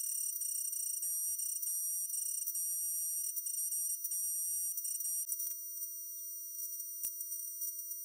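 Electric arc welding: a crackling arc with a high-pitched whine, in short runs broken by brief gaps, stopping about five seconds in. A single click near the end.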